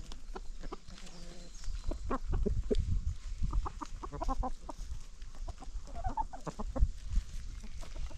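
Free-range chickens clucking, with short calls scattered through and quick runs of clucks about halfway through and again a little later.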